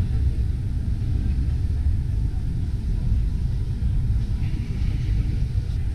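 Steady low rumble of indoor exhibition-hall background noise, with no distinct event standing out.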